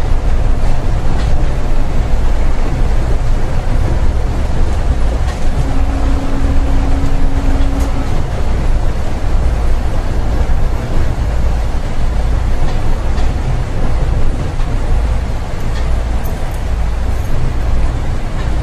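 Seibu 8500 series 'Leo Liner' automated guideway train running on its rubber tyres along the concrete guideway, heard from inside the car: a steady low rumble with a few faint clicks. A steady tone sounds for about two seconds around the middle.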